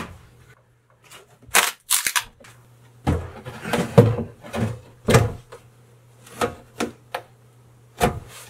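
Sink being knocked and pushed down into a countertop cutout that is too tight for it: a series of irregular knocks and thumps, bunched together in the middle.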